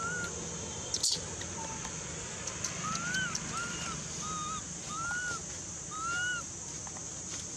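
Baby macaque crying for its absent mother with short coo calls that rise and fall in pitch: one at the start, then five in quick succession from about three seconds in. A steady high hiss runs underneath, with one sharp click about a second in.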